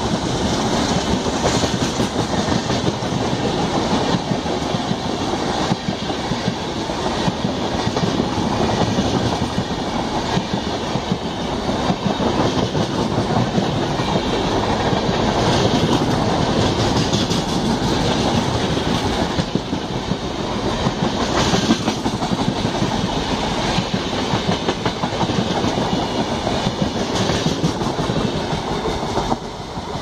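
LHB passenger coaches of an express train running past at speed: a loud, steady rush of steel wheels on rail with clicks as the wheels cross the rail joints. The noise drops near the end as the last coach goes by.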